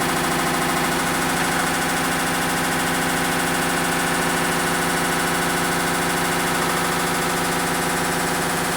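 Hitachi BEAT WASH top-loading washing machine running with a loud, steady mechanical noise and a fast, even rattle, typical of its spin cycle with a failed clutch.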